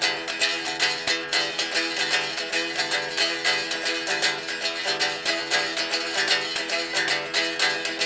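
Guitar music: a guitar playing quick, evenly spaced picked notes over a steady chord.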